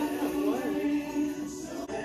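Background music with choir-like singing: a held low note under a moving vocal melody, briefly broken near the end.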